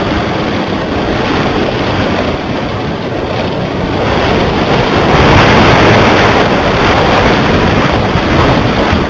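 Wind buffeting the microphone of a camera carried aloft on a kite line: a loud, rough rush of noise that swells a few seconds in and then eases slightly.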